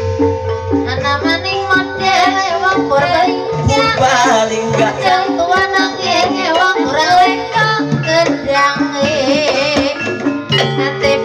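Javanese gamelan music accompanying an ebeg dance: repeating pitched metallophone patterns and hand-drum strokes under a wavering sung melody.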